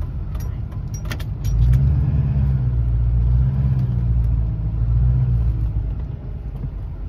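Pickup truck's engine and tyres heard from inside the cab while it rolls slowly into a lot: a low hum that swells about a second and a half in and eases off near the end, with a couple of light clicks about a second in.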